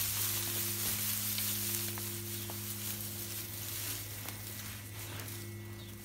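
Dry straw bedding rustling and crackling close to the microphone as a hand pushes through it, over a steady low hum.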